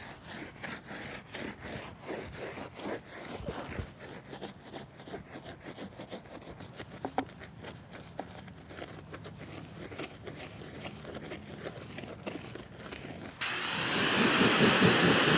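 Truck tire and wheel being scrubbed by hand with soapy water: quick, irregular rubbing strokes. Near the end a garden hose comes on suddenly, and its spray hisses steadily against the tire.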